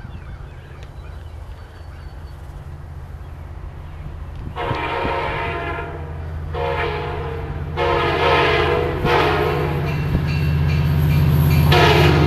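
Diesel locomotive of Amtrak train 76 approaching, its engine rumble growing louder. From about four and a half seconds in, the locomotive horn sounds a series of blasts with short gaps between them, and the last blast is still sounding at the end.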